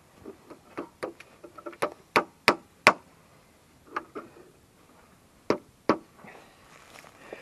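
A small hammer knocking a sap tap into a maple trunk. Light taps build to four sharp blows about two to three seconds in, followed by two more pairs of blows.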